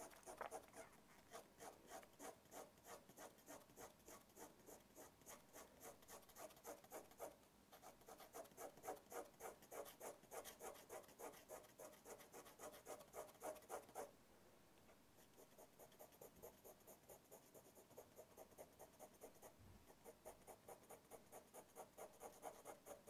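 Pencil hatching on drawing paper: quick back-and-forth strokes, about three a second, laying dense parallel shading lines. The strokes pause briefly about seven seconds in and again around fourteen seconds, and are softer in the last part.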